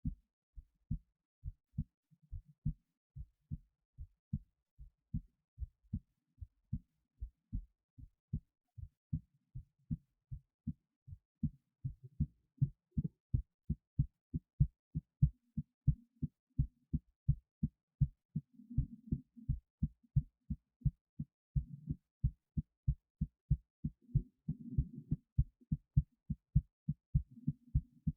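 A human heartbeat recorded at the chest, with a 25 lb weight resting on the left side of the chest: a steady, even run of low thumps that grow louder about twelve seconds in. A low rushing noise sounds between the beats a few times in the second half.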